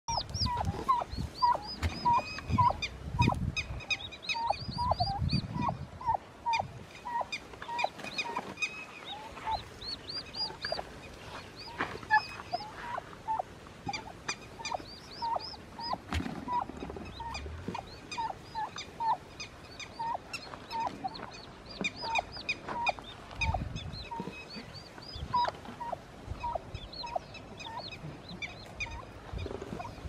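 Domestic turkeys calling: a steady run of short clucking notes about twice a second, with clusters of higher chirping notes and a few low rumbles.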